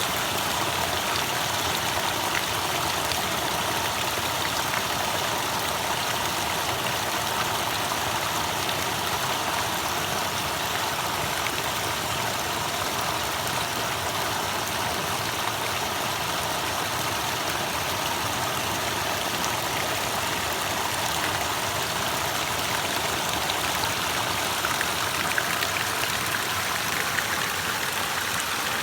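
Water falling and running in a small stream: a steady rushing splash.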